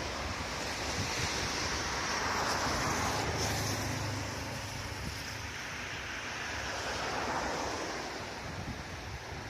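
Ocean surf breaking and washing up a beach: a steady rush of wave noise that swells a couple of seconds in and eases off towards the end.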